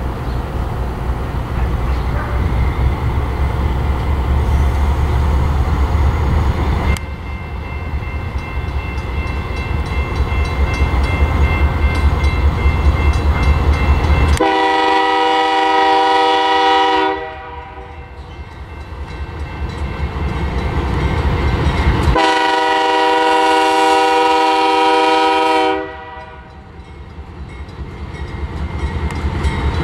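BNSF diesel freight locomotives passing close with a heavy low rumble, then two long blasts of a multi-note locomotive air horn, each about three seconds, about halfway and about two-thirds of the way through; another horn blast starts at the very end.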